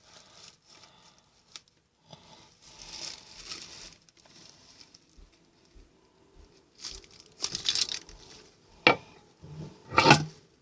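Pocket knife blade poking and tearing through cardboard, with scraping and crinkling; the loudest, sharpest tears come near the end.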